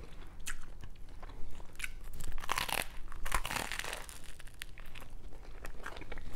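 Crunching bites and chewing of a toasted mac and cheese grilled cheese sandwich's crusty bread, heard close up, with the loudest run of crunches from about two and a half to four seconds in.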